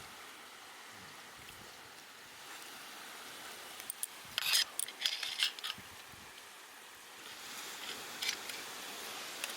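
Light metallic clicks and clinks of cutlery against a dish, in a quick cluster about four to six seconds in and a few more near eight seconds, over a faint steady hiss.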